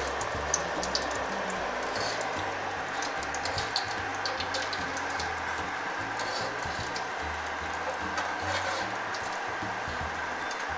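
Hot oil in a wok sizzling steadily during deep-frying, with light crackles and a few soft clicks as the fried pieces are moved and lifted with chopsticks and a metal slotted skimmer.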